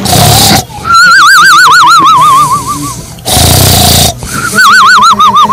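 Exaggerated cartoon-style snoring, twice over: a loud rasping in-breath, then a long wavering whistle on the out-breath that slides down in pitch.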